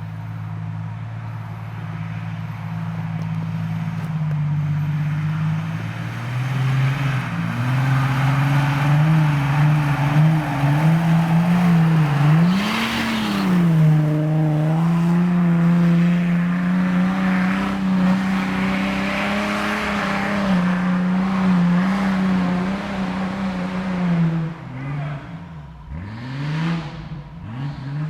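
Jeep Cherokee XJ engine working under heavy load on a steep off-road climb, its revs rising and falling as the throttle is worked. There is a sharp rev up and back about halfway through. Near the end the revs drop low, then come several quick blips of the throttle.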